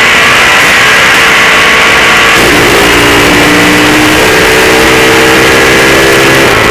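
Chevrolet 400 cubic inch small-block V8 in a drag car, running very loud, heard from inside the car as a dense, harsh noise with a few steady tones coming in about two and a half seconds in.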